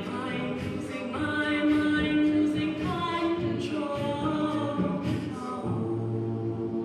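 Unaccompanied a cappella group singing in harmony, several voices moving through chords; near the end they settle into one long held chord.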